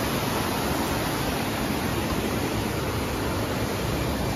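Rows of tall ornamental fountain jets spraying and splashing down into a pool, a steady rushing hiss.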